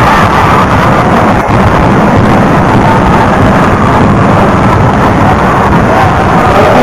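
Loud, heavily distorted din that overloads the recording, a dense rumbling noise with no clear single event. Faint held musical tones begin to come through near the end.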